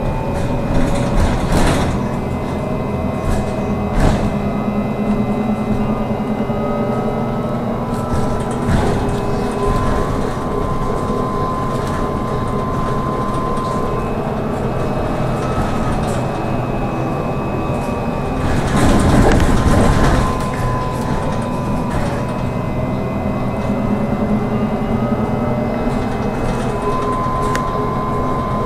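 Inside a moving trolleybus: the electric traction drive whines in steady high tones, some sliding in pitch as the speed changes, over road rumble with a few knocks and rattles of the body. A louder rush of noise comes about nineteen seconds in.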